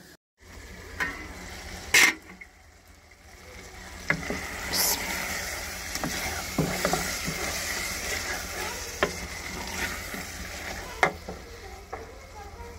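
A wooden-handled spoon stirring potato-and-pea curry (aloo matar) in an aluminium pot over a wood fire, scraping and clicking against the pot while the curry sizzles. A sharp knock about two seconds in.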